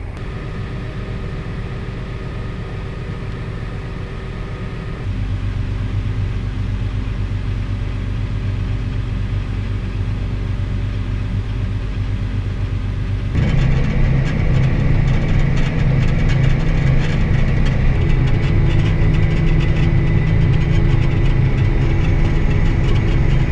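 Farm tractor engine running steadily, picking up speed about five seconds in and getting markedly louder with added rattling about thirteen seconds in as it pulls the grain wagon.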